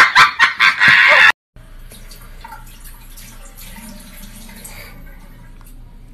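Loud laughter for about the first second, cut off abruptly. A faint steady low hum with light background noise follows.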